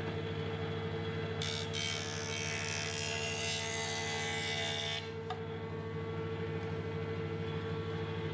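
Woodworking jointer running steadily, its cutterhead planing the edge of a plywood board with a loud hiss from about a second and a half in until about five seconds in. The cut takes a tapered sliver off the edge, feathering down to nothing.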